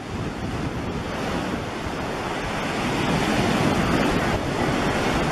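Ocean surf breaking and washing onto a beach, with wind on the microphone; the rush grows louder about halfway through.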